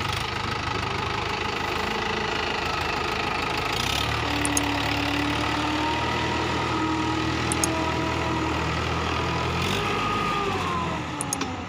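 Mahindra 575 DI tractor's four-cylinder diesel engine running steadily under load as the tractor works to get out of mud, with a deeper note from about four seconds in; the revs fall away near the end.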